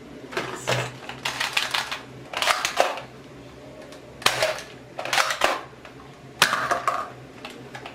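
Toy NERF dart blaster being cocked and fired over and over: short clusters of sharp plastic clacks, about six of them roughly a second apart.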